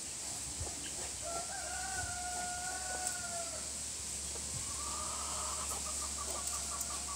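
A rooster crows once, a long held note of about two seconds that dips at the end. From about five seconds in, a rapid run of clucks follows, about five a second.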